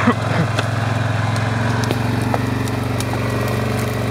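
ATV engine running steadily at a low, even pitch, with a few light clicks over it.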